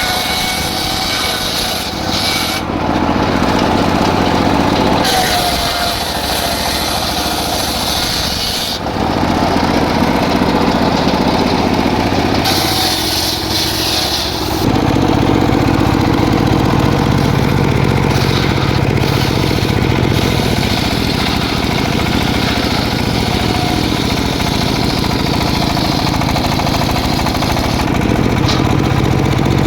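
Engine-powered saw cutting teak logs: the engine runs without a break, and its note shifts every few seconds as the blade goes in and out of the cut.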